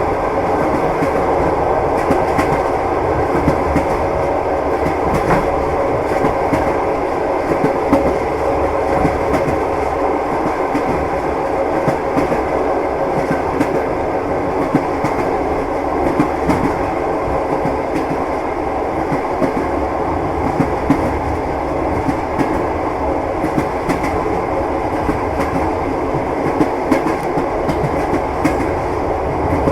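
Train wheels clattering over rail joints at running speed: a steady rumble with frequent, irregular knocks.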